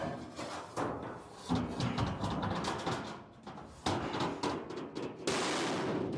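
A sheet of aluminum being handled and laid onto the boat's aluminum-angle subfloor: a series of knocks and metallic clatters, then a steady scraping noise for about the last second.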